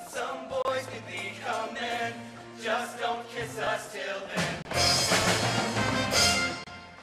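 Group of teenage boys singing a musical-theatre number with accompaniment, building to a loud, full final passage about five seconds in that cuts off shortly before the end.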